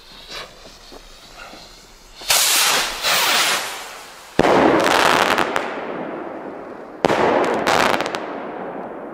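Weco Fire Fantasy Big Burst rockets bursting in the air: a loud burst about two seconds in, a sharper bang two seconds later and another near the end, each trailing off in a long fading echo.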